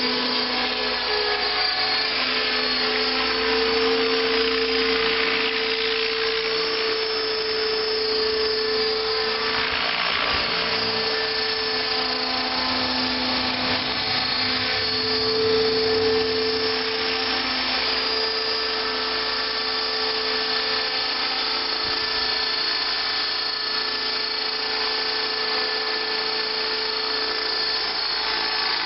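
Align T-Rex 600 electric radio-controlled helicopter in an MD 500 scale fuselage flying: the steady high whine of its electric motor and gears over the whir of the rotor blades. The sound swells and eases a little as the helicopter moves around.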